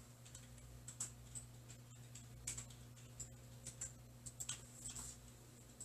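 Faint chalk writing on a blackboard: irregular taps and short scrapes as strokes are written, most frequent in the second half.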